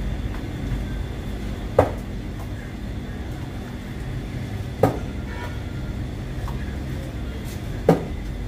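A serving scoop knocking sharply against a container three times, about three seconds apart, over a steady low hum.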